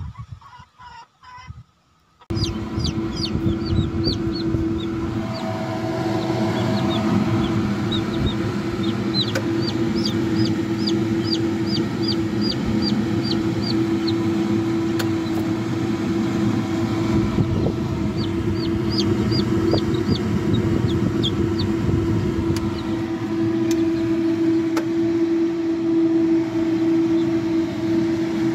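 Bantam chicks peeping: runs of short, high, falling peeps, several a second, in bouts of a few seconds, over a steady low hum. The first two seconds are quieter.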